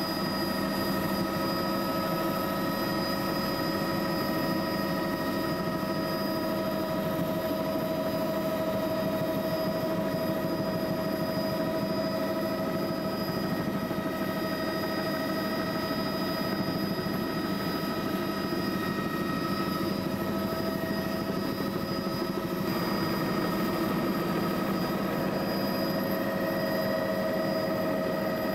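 Steady engine drone with several constant whining tones over a hum, unchanging throughout, with only a slight shift in pitch a little past the middle.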